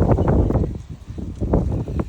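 Wind buffeting the microphone outdoors, with rustling and irregular light knocks.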